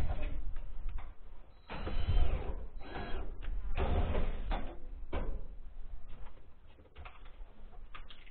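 Cordless drill-driver whirring in several short bursts in the first half, driving screws to fasten profiled steel sheet to the eave framing.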